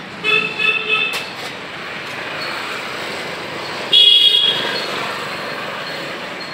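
Vehicle horns honking over steady street traffic noise: a few short beeps about a third of a second in, then a louder, higher-pitched honk about four seconds in.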